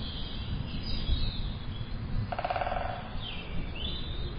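Outdoor field recording of a steady low rumble with birds chirping over it: a brief rapid trill about halfway, then quick high chirps that sweep downward near the end.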